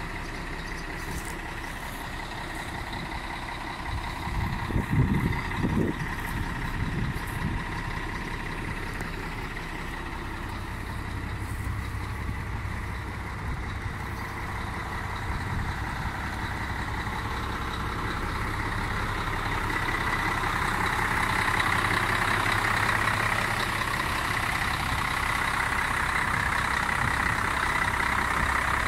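Volvo FH12 380 tipper truck's 12-litre straight-six diesel idling steadily, growing louder in the second half. A few low thumps come about five seconds in.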